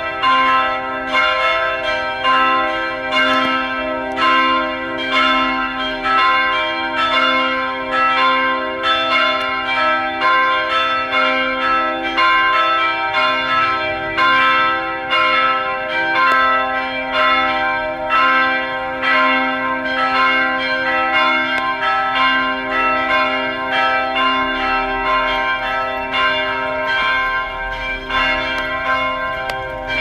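Cathedral belfry bells ringing continuously, several bells struck in quick succession so their tones overlap and ring on, calling the faithful to evening Mass.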